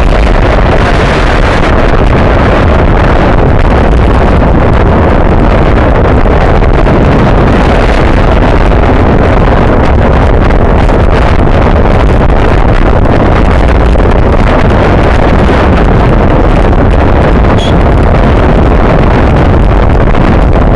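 Loud, steady wind noise buffeting the microphone of a camera mounted on a bicycle riding at racing speed.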